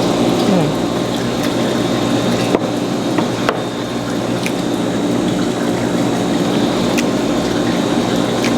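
Close-miked wet chewing and mouth sounds of someone eating seafood, with a few sharp clicks, over a steady background hiss.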